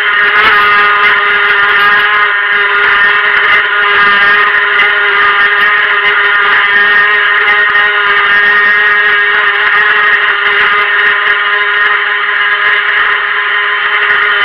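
Helion Rivos RC boat's stock brushed electric motor running at a steady high speed, a loud, even whine that holds its pitch throughout.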